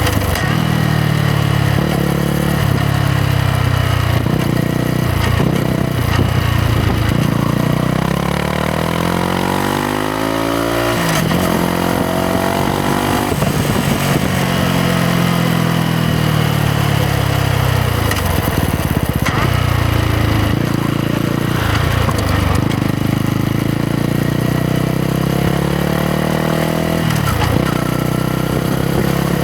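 Yamaha MT-125's single-cylinder four-stroke engine running on the move. Its pitch rises with the throttle and drops at each gear change or roll-off, with one long climb from about eight seconds in that breaks off sharply at a shift near eleven seconds.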